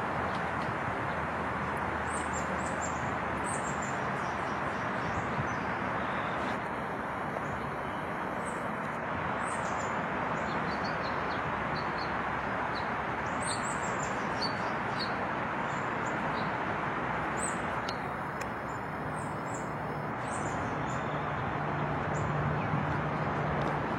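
Small birds chirping in short, high, scattered calls over a steady rushing background noise, with a faint low hum coming in near the end.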